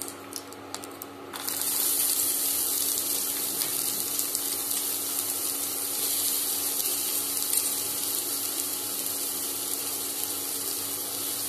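Chopped onions frying in hot oil in a kadai: a loud, steady sizzle sets in about a second and a half in as the onions hit the oil, after a few light crackles from the whole spices frying.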